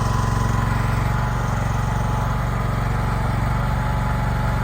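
Small gasoline engine of an AGT QH13R mini excavator running steadily.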